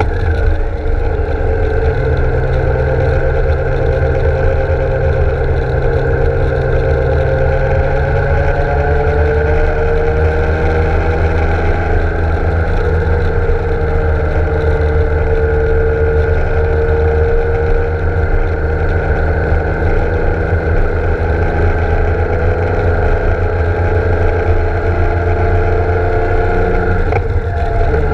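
BMW K1600 GTL's inline-six engine running steadily at cruising speed, its pitch drifting gently down and back up, over a steady low rumble.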